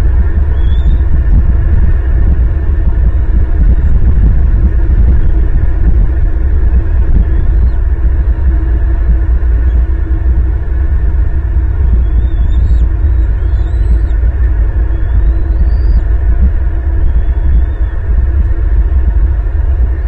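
Wind buffeting the outdoor nest-cam microphone: a loud, fluctuating low rumble. A few faint, high, rising chirps sound over it in the second half.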